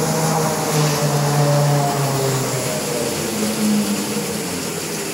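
Vacuum emulsifying mixer's agitator and homogenizer motors running, a steady mechanical hum of several pitches. The lowest tone drops out about two and a half seconds in, and the sound grows gradually quieter toward the end.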